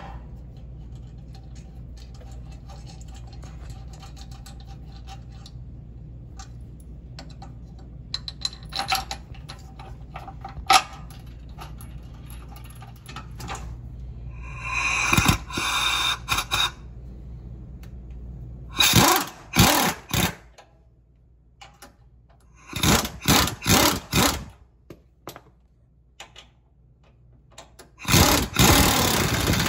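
Ratchet on a long extension driving the longer sway bar bracket bolts through a new spacer into the Toyota Tundra's frame, heard as four bursts of rapid ratcheting rattle of one to two seconds each. A steady low hum underlies the first part and stops a little past halfway.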